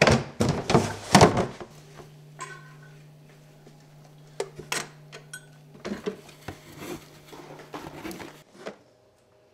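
A run of irregular knocks and clatters, like household objects being handled, loudest in the first second or so, over a low steady hum; the hum and the knocks stop near the end.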